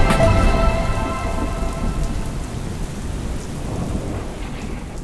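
Rain falling steadily with a low rumble of thunder, fading away near the end.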